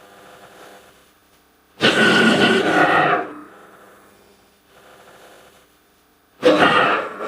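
Creature roar sound effects for an invented tiger–crocodile hybrid: a loud roar lasting about a second and a half, starting about two seconds in, and a second loud roar starting near the end. Fainter growls come in between.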